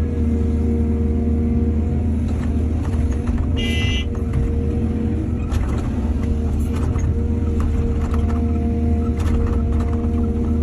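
Diesel engine of heavy earthmoving machinery running steadily with a deep hum, with scattered short knocks and clanks. A brief high-pitched squeal sounds about three and a half seconds in.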